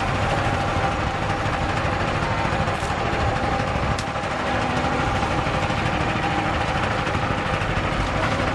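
Motor-driven sugarcane juice press running steadily, its steel rollers crushing cane, with a constant mechanical hum.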